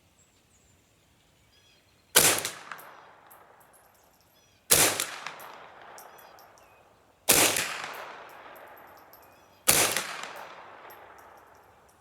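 Ruger 10/22 .22 rimfire rifle firing four single shots, about two and a half seconds apart, each sharp crack followed by a trailing echo that dies away before the next.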